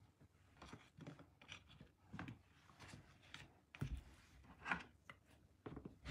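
Faint, scattered taps and soft knocks of cantaloupe pieces being handled on a wooden cutting board and put into a plastic bowl. The loudest knocks come a little under four seconds in and again near five seconds.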